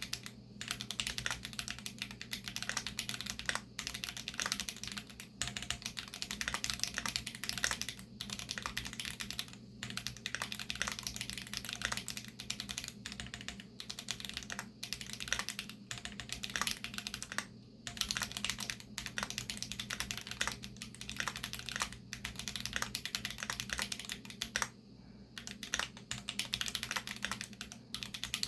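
Fast, continuous typing on a Keychron Q2 mechanical keyboard with Krytox 205-lubed Holy Panda tactile switches and Glorious GPBT keycaps: a dense run of key strokes with brief pauses about ten, seventeen and twenty-five seconds in.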